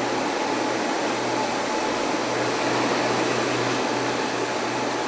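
Steady fan noise: an even whooshing hiss with a low electrical hum and a faint steady whine under it.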